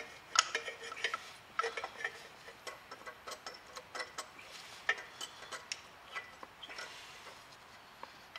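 Irregular light metallic clicks and knocks of hand work in an engine bay as the oil return pipe is pushed onto the turbocharger. The clicks come thick at first and thin out toward the end.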